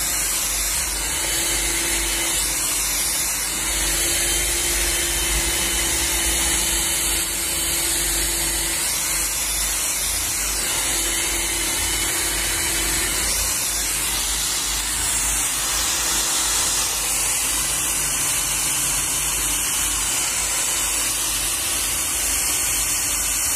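Handheld hair dryer running steadily, blowing a constant rush of air onto hair lifted with a round brush during a blow-dry, with a faint motor hum that comes and goes in the first half.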